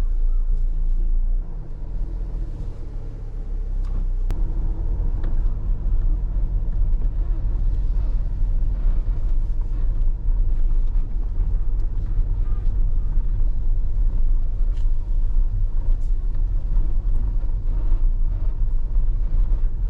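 Steady low road and engine rumble inside a moving campervan.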